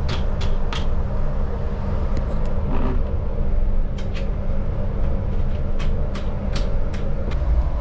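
Steady low machinery rumble with a faint hum, heard inside an enclosed lifeboat's hull, with a scatter of sharp clicks and taps as the fastener of a small storage hatch cover is handled.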